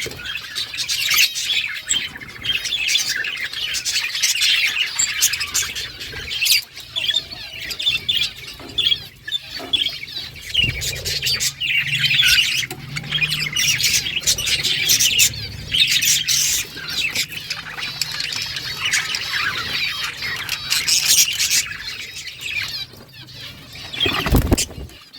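A flock of budgerigars chirping and chattering continuously, many birds at once. Near the end comes a brief thump.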